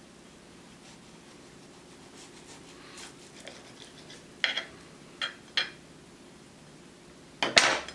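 Kitchen knife cutting through a grilled potato-and-cheese patty, the blade scraping against a ceramic plate in several short strokes, the loudest one near the end.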